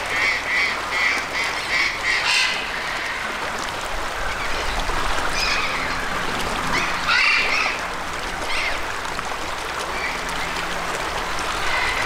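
Birds calling: a quick run of short, raspy calls, about three a second, for the first two seconds, then scattered single louder calls through the rest.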